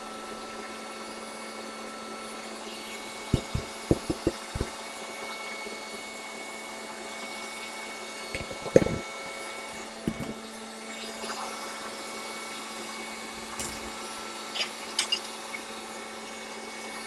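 Stand mixer motor running steadily as it whisks egg whites and sugar. Several light knocks from containers and a bowl being handled come over it, in a cluster a few seconds in, and the loudest about halfway through.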